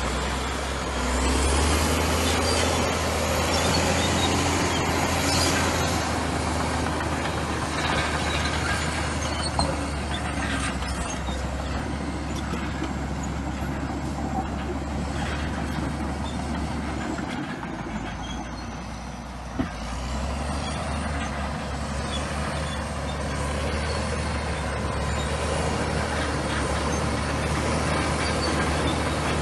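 Komatsu bulldozer's diesel engine running steadily under work. About two-thirds of the way through it eases off briefly, then picks up again.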